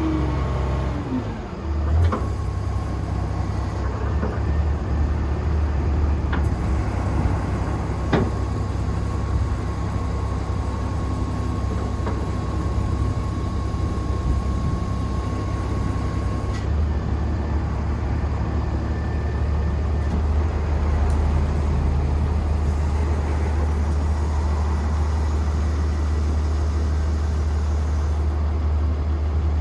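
Komatsu WA100-3 wheel loader's diesel engine running steadily, its revs falling away in the first second or two. A thin steady whine sounds for a while, with a few sharp clicks and knocks from the machine.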